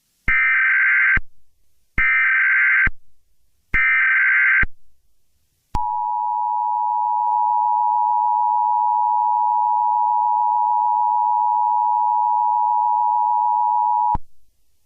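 Emergency Alert System header: three short bursts of SAME digital data, each about a second long, then the two-tone EAS attention signal holding steady for about eight seconds before cutting off.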